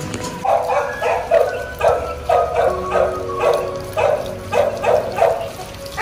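A dog barking over and over, about two barks a second, starting about half a second in.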